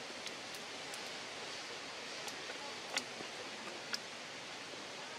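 Steady outdoor background hiss with a handful of brief, sharp clicks scattered through it.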